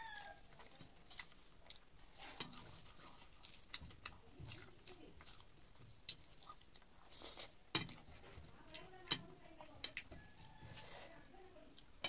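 Close-up mouth sounds of a person eating by hand: chewing and lip-smacking as short, irregular wet clicks.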